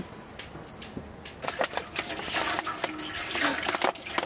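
Water being poured into a container, a splashing pour that starts about a second and a half in and stops near the end.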